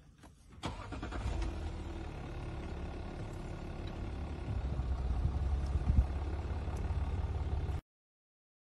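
A car engine starts about a second in and then runs steadily, growing a little louder, with one sharp knock near six seconds; the sound cuts off suddenly shortly before the end.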